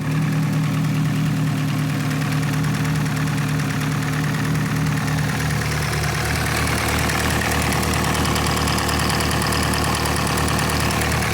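Car engine idling steadily just after being started, still cold, with the electric radiator fan not yet running. A faint higher whine joins the engine sound about halfway through.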